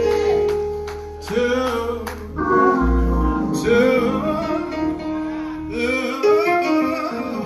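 Live gospel singing: the voice draws out a line in long, bending runs and held notes over instrumental backing with sustained low bass notes. The bass drops out about six seconds in.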